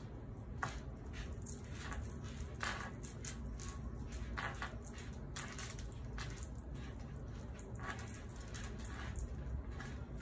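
Small letter tiles being picked through and slid about on a tabletop by hand, giving irregular light clicks and rustles.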